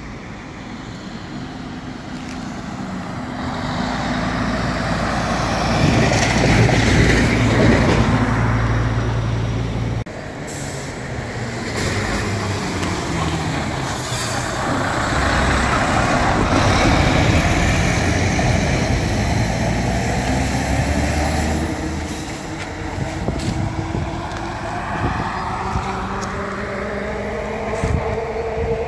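Heavy lorries passing close by on the road, one after another: two long swells of diesel engine and tyre noise that rise and fade. A rising engine whine comes near the end.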